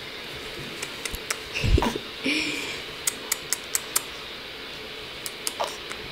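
A baby's brief soft coos and small vocal sounds over a steady hiss. About three seconds in there is a quick run of five sharp clicks, with two or three more near the end.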